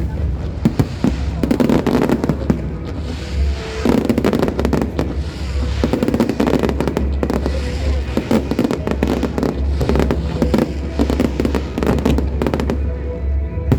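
Fireworks bursting in quick succession, a dense run of bangs and crackles, with music playing along.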